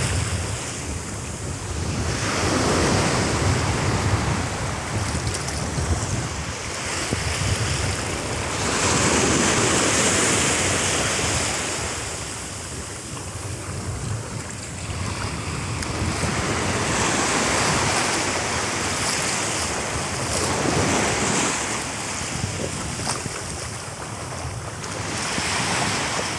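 Sea surf washing up a sandy beach in slow surges that swell and ebb every several seconds, with wind rumbling on the microphone.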